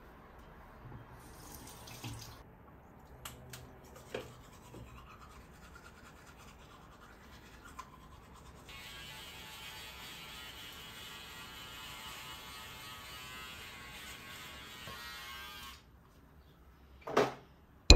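Teeth being brushed with a toothbrush: a steady scrubbing that starts about halfway in and stops about seven seconds later, after a few small scattered clicks. One short, louder knock near the end.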